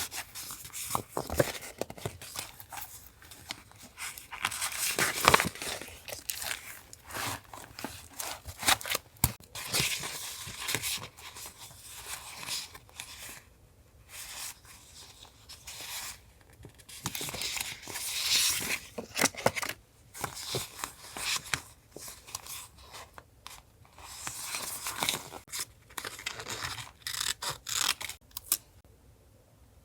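Paper being handled for collage journaling: torn, cut with scissors and rustled in irregular bursts, with occasional sharp clicks.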